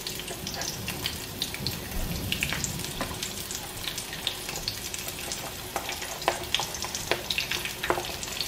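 Sliced red onion and peppers sizzling in hot oil in a frying pan as they are stir-fried: a steady hiss with frequent crackling pops as more pieces drop in.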